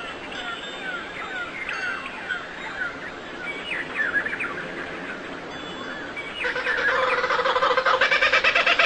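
Small birds chirping in quick, short calls. About two-thirds of the way in, a louder, rapidly pulsing sound with several steady tones joins.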